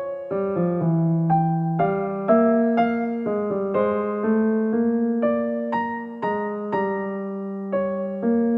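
Background music: a gentle electric piano melody, single notes struck one after another and left to ring.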